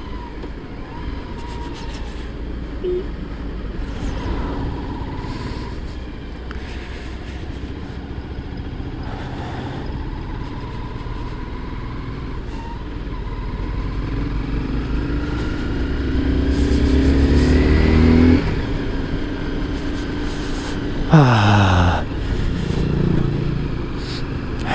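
Honda sport motorcycle's engine running under the rider, over a steady rush of low wind and road noise. Near the end its pitch climbs for a few seconds as it accelerates and cuts off abruptly, followed a few seconds later by a quick falling sweep.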